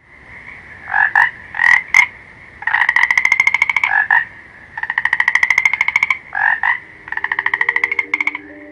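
A frog calling: a few short double croaks, then three long rapid trills of about a second each, separated by further short croaks. Soft low music tones come in under the last trill near the end.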